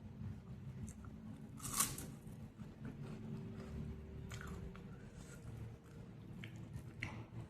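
A person eating close to the microphone, chewing with wet mouth sounds. About two seconds in there is one loud, crisp crunch, with smaller crunches later on.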